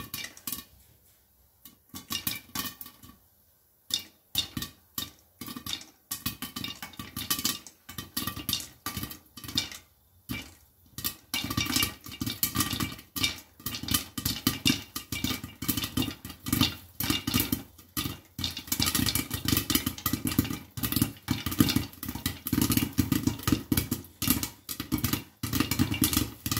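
Popcorn kernels popping in hot oil in a pan covered with a glass lid. The pops come scattered at first, then build after about ten seconds into rapid, nearly continuous popping.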